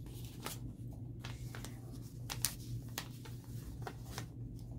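Light rustles and small clicks of a paper pattern being unpinned and peeled off a cut fabric piece, over a steady low hum.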